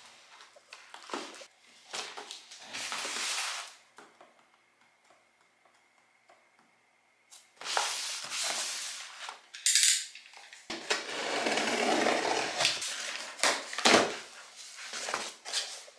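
Cardboard shipping boxes handled on a desk: a run of rustling, scraping and knocks, with a quiet pause a few seconds in and a longer scraping stretch about two thirds through.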